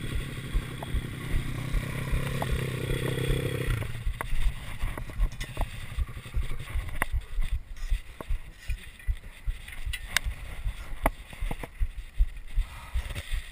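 Pit bike's single-cylinder four-stroke engine running under throttle, then dropping away about four seconds in. After that come repeated knocks and rattles of the bike bouncing over a rough dirt trail.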